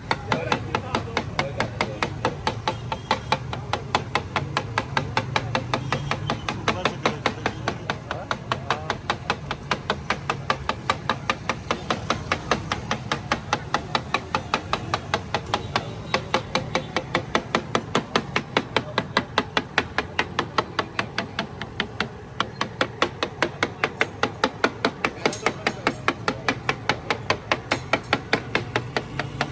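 Metal spatula striking and scraping a flat iron tawa in a quick, even rhythm of about three to four clanks a second, the street cook working the daal fry.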